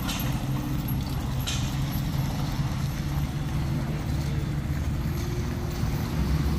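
Truck engine running steadily with a low hum.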